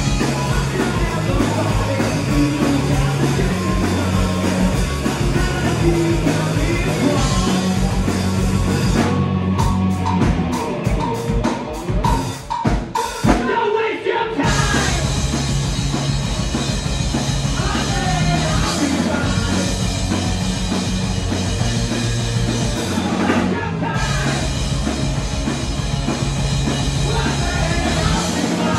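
Live rock band playing loud through a small PA: electric guitar, bass guitar and drum kit, with singing. About nine seconds in, the bass and steady beat drop out into a run of short sharp stops and hits for several seconds, then the full band comes back in.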